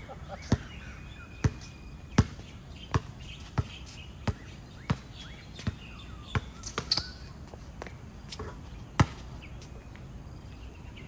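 A basketball being dribbled on a hard court: sharp single bounces about every three-quarters of a second, stopping for the last couple of seconds.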